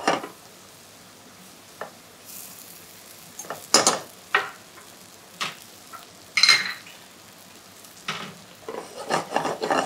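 Pork fillet medallions sizzling in a frying pan of bubbling white wine and prunes over medium-high heat, with a metal meat fork knocking and scraping against the pan now and then, several times in quick succession near the end.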